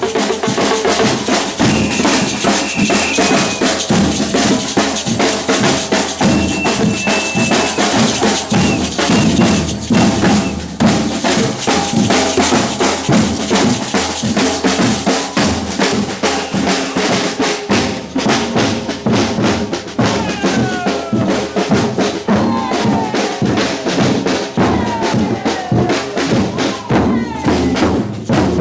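Batucada samba percussion ensemble playing a dense, driving drum rhythm without a break.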